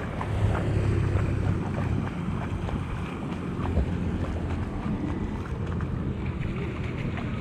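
Wind rumbling on the microphone, with water sloshing and splashing as someone wades slowly through shallow floodwater on a street.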